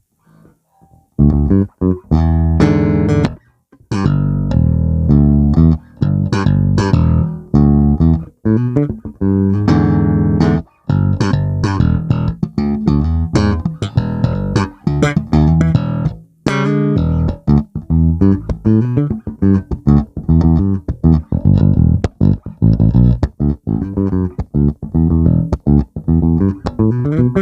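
Fender Player Plus Meteora electric bass played solo with both pickups on, recorded direct through an audio interface. A busy run of plucked notes and riffs starts about a second in, with a few brief pauses.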